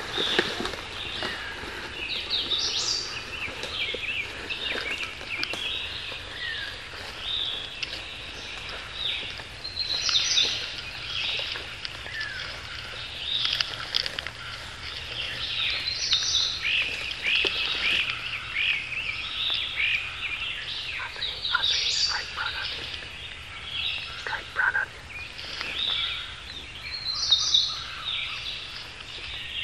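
Several songbirds singing at once: a continuous run of overlapping chirps and short song phrases.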